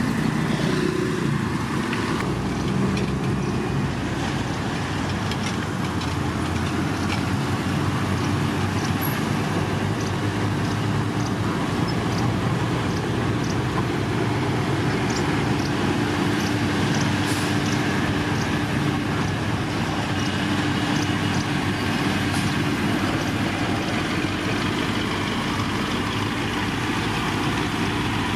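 Heavy diesel road-construction machinery running steadily at working load, with scattered light ticks over the engine noise.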